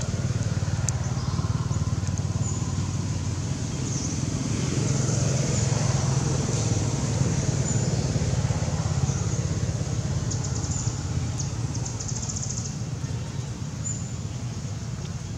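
Steady low rumble of outdoor background noise, with short high-pitched chirps and quick trills now and then, more of them in the second half.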